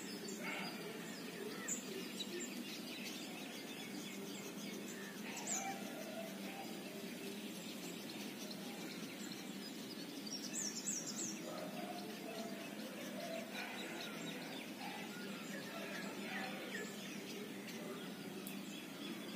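Quiet outdoor background with a few short, high bird chirps scattered through it, including a quick run of falling chirps about halfway through.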